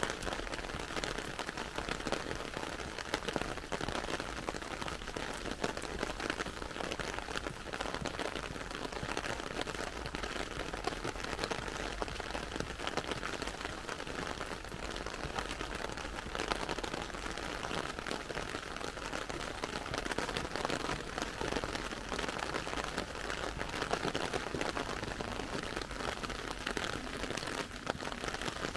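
Heavy rain falling steadily on wet pavement and parked cars: an even hiss of dense, fine drop patter.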